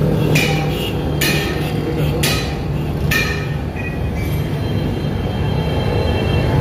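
Street background noise: a steady low rumble of motor traffic, with four sharp clacks in the first three seconds, about a second apart.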